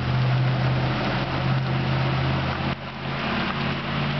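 A vehicle engine runs with a steady low hum under the dense hiss of heavy rain and water on a flooded street. The lower part of the engine hum drops away a little under three seconds in.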